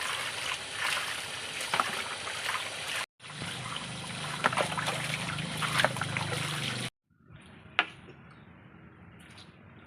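Water running and splashing, with scattered clicks and knocks. It breaks off abruptly twice, and the last few seconds are much quieter with a single sharp click.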